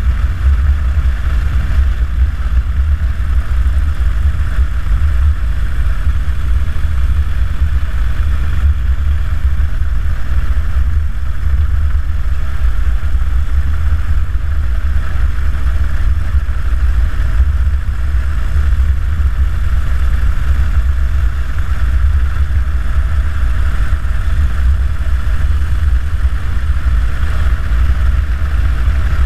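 2009 Harley-Davidson Dyna Super Glide's Twin Cam V-twin running at a steady cruising speed, heard from the rider's position, with a constant low wind rumble on the microphone as the loudest part.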